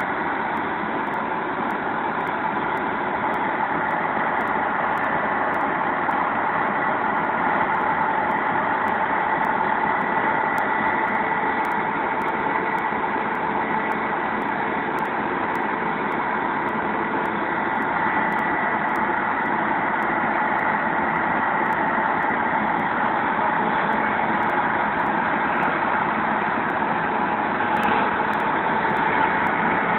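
Tractor engine running steadily, with a steady whine on top and no change in speed.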